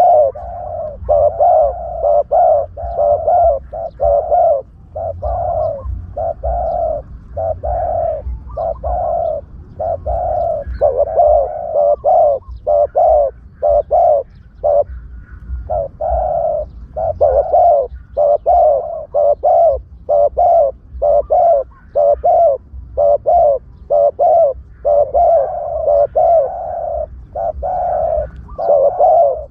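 Spotted doves cooing over and over, one phrase after another with short breaks, over a faint low rumble. This is a lure call used to draw spotted doves in for trapping.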